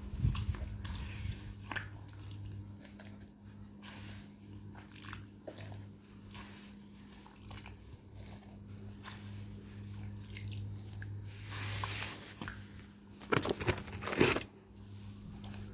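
Wet mud squelching and crackling in short irregular bursts around a knee-high boot standing in it, loudest in a cluster near the end.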